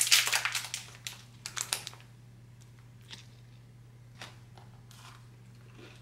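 Crinkling and tearing of a protein bar's foil wrapper as it is peeled open, fading out about two seconds in. After that there are only a few faint crunches from the crisped bar being bitten and chewed.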